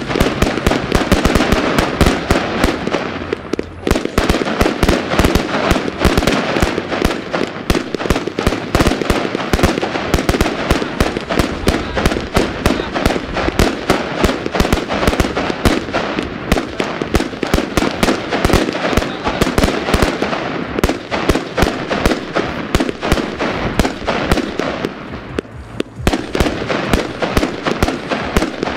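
Bonfireworks 'Colorfull Thunder Tail' fireworks cake firing shot after shot, a dense, unbroken crackle of many sharp pops. It thins briefly about four seconds in and again near the end.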